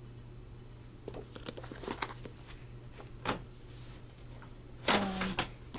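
Paperback manga volumes being handled, with rustling and light knocks and clicks as one book is set down and others are picked up. A short vocal sound comes about five seconds in.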